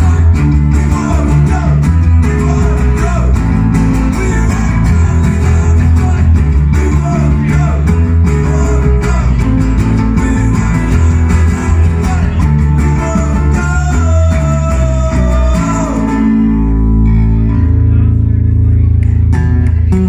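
Live band playing a rock song on two strummed acoustic guitars and an electric bass guitar, with a man singing. At about sixteen seconds the singing and strumming stop and the band holds a final chord that rings on.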